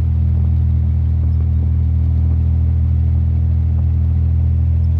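1938 SS Jaguar 3½ Litre's straight-six engine running at a steady speed while the car cruises, a constant low engine drone with no change in pitch.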